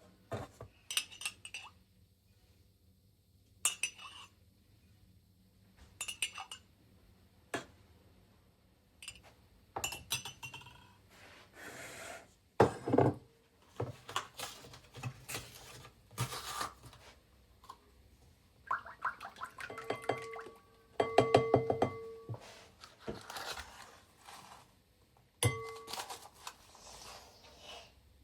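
Kitchen dishes and utensils being handled, with irregular clinks and knocks. A run of short ringing clinks comes about two-thirds of the way through, and one more near the end.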